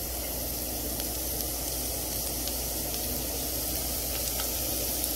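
Diced onion frying in olive oil in a pan over low heat: a steady, gentle sizzle with a few faint pops.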